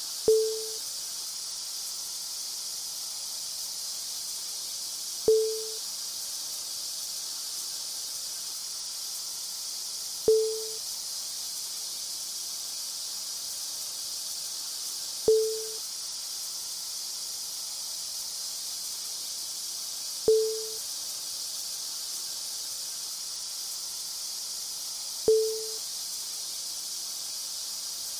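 A steady, high-pitched hiss of electrical or air-system noise, with a sharp click and a short low tone repeating every five seconds, six times.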